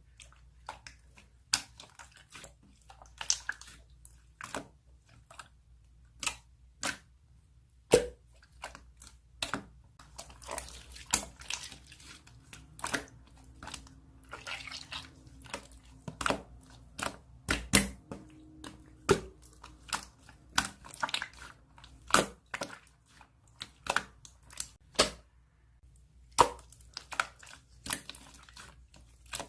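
Slime being pressed and squished by hand, giving irregular sharp wet pops and clicks, about one or two a second.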